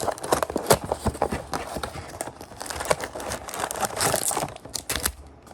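Packaging of a trading card box being torn open and crumpled: an irregular run of crinkles, rips and small clicks, busiest about four seconds in.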